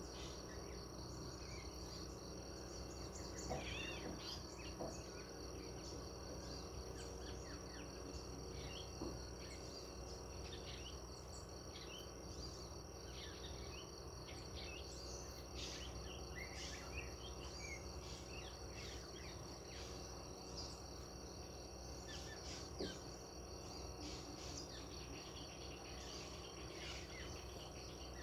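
Countryside ambience: a steady high insect trill, with many short bird chirps scattered through it over a faint low background rumble.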